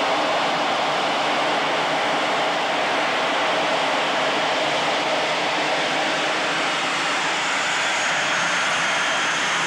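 MiG-21 jet fighter in flight, heard from inside the cockpit: a steady, unbroken rush of jet engine and airflow noise, with a faint high whine joining in near the end.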